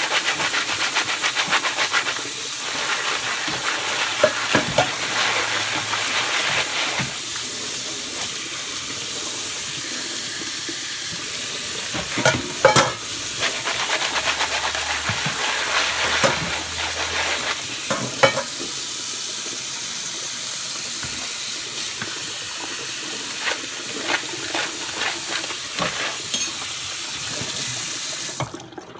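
Kitchen tap running onto crayfish in a plastic colander in a stainless-steel sink, a steady splashing hiss with a few sharp knocks. The water cuts off suddenly near the end.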